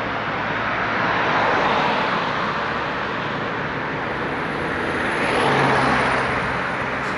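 Road traffic: cars passing on a street, a steady tyre-and-engine noise that swells as one car goes by about a second and a half in and again as another passes about five to six seconds in.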